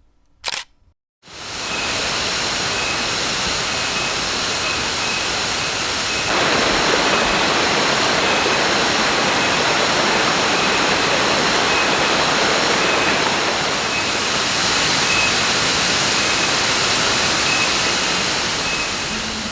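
A waterfall pouring into its pool: a steady rush of falling water that starts about a second in and grows louder about six seconds in. A faint high pulsing buzz of insects runs above it.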